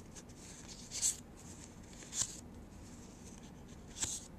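Magic: The Gathering cards being flipped through by hand, each card slid off the stack with a short papery swish: three swishes, about a second in, about two seconds in and near the end.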